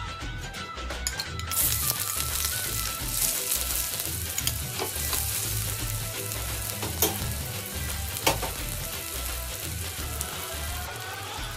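Chopped red onion hitting hot oil in a balti pan about a second and a half in, then sizzling steadily as it is stirred, with a couple of sharp knocks of the spoon against the pan. Background music plays underneath.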